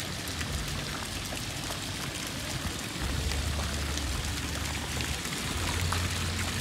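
Small fountain jets splashing steadily into a shallow decorative pool channel, water pouring and pattering on the surface. A low hum joins in about three seconds in.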